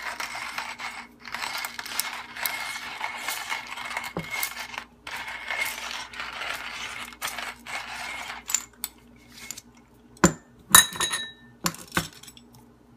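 Stainless steel manual burr coffee grinder being hand-cranked, crunching coffee beans at a fine setting for about eight seconds with a short break a little after halfway. Several sharp metallic clicks and clinks follow near the end.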